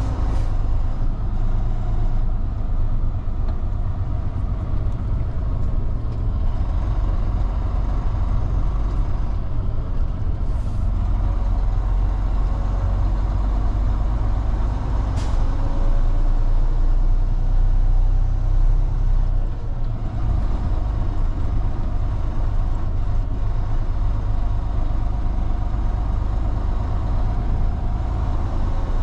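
Semi truck's diesel engine running steadily, a deep rumble heard from inside the cab as the truck rolls slowly. A single short click about fifteen seconds in.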